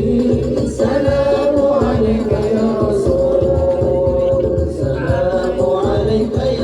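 Sholawat music: voices singing held notes together over a busy low percussion beat.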